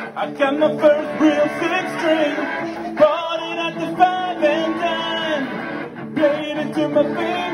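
Live rock band playing: a male voice singing over guitars and drums, with sharp beats about once a second.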